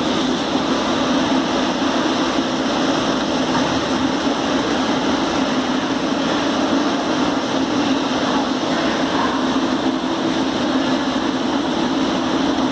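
Muni light-rail train in an underground station, rolling slowly to a stop and then standing at the platform with its doors open. It gives a steady hum with a low drone that does not change.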